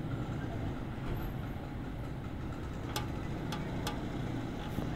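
Steady low rumble of distant city traffic, with three short sharp clicks a little past halfway.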